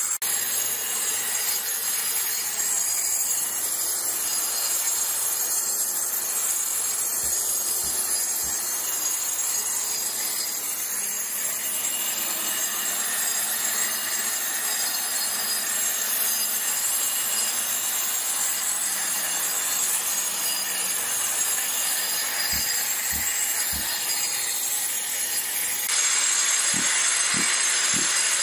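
Hand-held angle grinder in a dust shroud grinding an old, worn concrete slab surface, running steadily with a high whine, while a shop-vacuum dust extractor draws the dust through the hose. The sound grows a little louder and brighter near the end.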